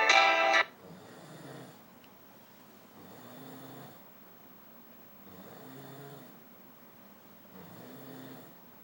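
A person snoring: four slow snores about two seconds apart, each low in pitch. Music cuts off less than a second in, just before the first snore.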